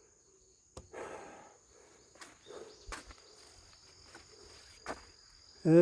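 Steady high-pitched insect trilling in the background, with a second trill joining about three seconds in. About a second in there is a sharp knock followed by a short rustle, then a few light scattered clicks and scuffs.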